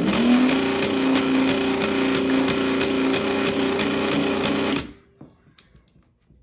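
Lionel 397 coal loader's small electric motor driving its conveyor belt: a steady hum with fast, even rattling clicks. It starts abruptly and cuts off after about five seconds, as the freshly reassembled loader is test-run.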